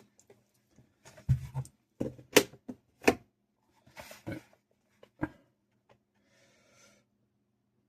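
Scattered short clicks, taps and soft rustles, as of small objects being handled close to the microphone, bunched in the first five seconds and then falling away.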